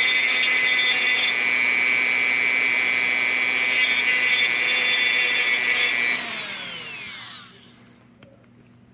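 Dremel rotary tool with a cutting wheel running at high speed in a steady high whine, grinding down a plastic part. About six seconds in it is switched off and winds down, its whine falling in pitch until it stops.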